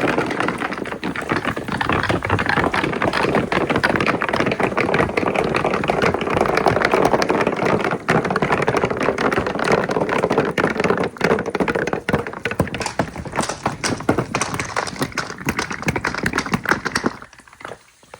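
Glass marbles rolling and clattering down a marble run, a dense stream of clicks and knocks that stops suddenly about 17 seconds in.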